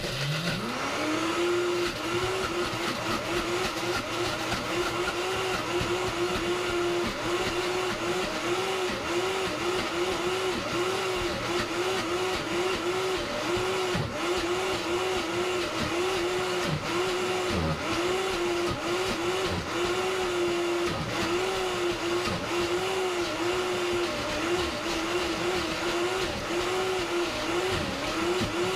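Vitamix S55 personal blender motor ramping quickly up from low speed to its highest speed, then running hard through frozen mixed berries and lemon juice for a sorbet. Its pitch sags briefly over and over, about one and a half times a second, as the blades load up on the frozen fruit being worked down with the tamper.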